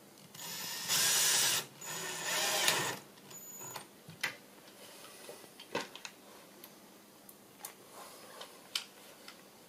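Cordless drill driving a countersunk screw through a steel hinge into the wooden leg, in two short runs of about a second each, the screw pulling the hinge down tight. After that come a few light clicks and knocks.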